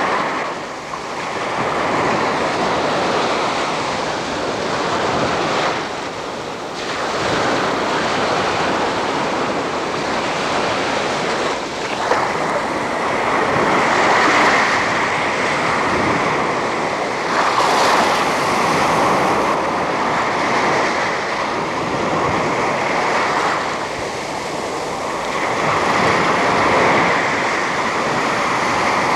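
A continuous rushing noise, like surf or wind, that swells and eases every few seconds, with brief dips about a second in, around six seconds in and around twelve seconds in.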